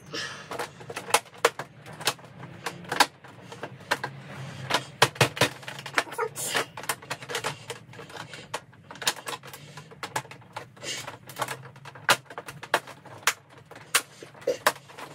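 Hard plastic fairing panels and their clips on a Honda PCX 125 scooter being pushed and snapped into place by hand: irregular sharp clicks and knocks, over a low steady hum.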